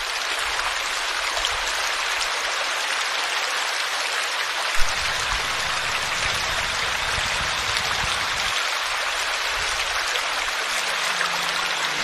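Small forest stream flowing and splashing steadily over a low cascade into a pool, with one brief sharp sound about five seconds in. Soft music comes in near the end.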